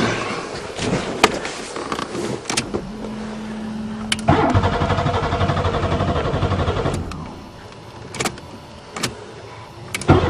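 Buick Regal engine cranking on the starter for about three seconds without firing, then cranking again near the end: a no-start after winter storage. A steady hum comes before the first crank.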